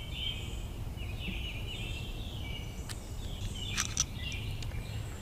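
Birds chirping in short repeated phrases over a steady low outdoor rumble, with a few light clicks of small dent-puller parts being handled about three to four seconds in.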